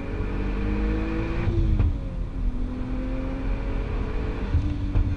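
Turbocharged 3.2-litre VR6 engine of a Golf Mk4 R32 on track, heard from inside the cabin, pulling with its note rising, falling away about two seconds in, then climbing again.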